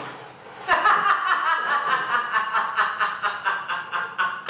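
A woman laughing, a quick run of chuckles that starts about a second in and keeps going.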